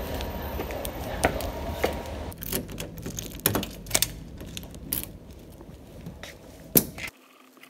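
Keys jingling and a key working a door lock: a string of sharp metallic clicks and rattles as the key turns and the doorknob is worked, the loudest click near the end. For the first two seconds there is a steady background rumble with a few light taps, and the sound cuts off abruptly near the end.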